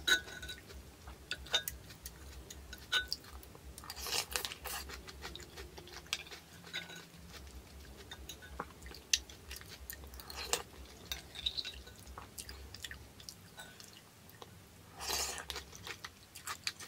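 Close-up mouth sounds of a person eating thick noodle soup: soft chewing with many small wet clicks, and two longer slurps, one about four seconds in and one near the end.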